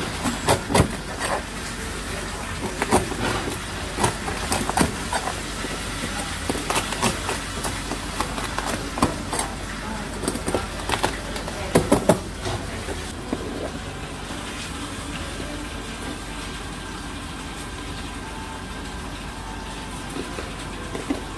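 Chinese cleaver chopping through crusty roast pork belly onto a cutting board: irregular knocks and crunches, with a quick run of three hard chops about twelve seconds in. The chopping stops a little after that, leaving only a faint steady background.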